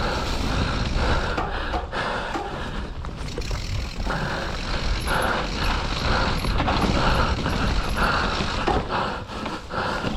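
Mountain bike coasting down a wet dirt trail: the rear freehub ratchets in repeated bursts, with rattling and sharp knocks from the bike over the bumps.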